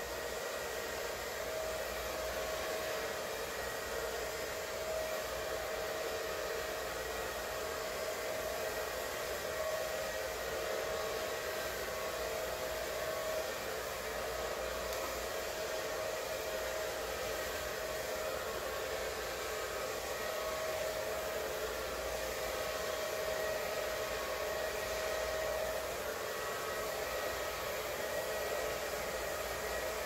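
Revlon blow dryer running steadily on low with its nozzle attachment on: a constant rush of air with a steady whine in it.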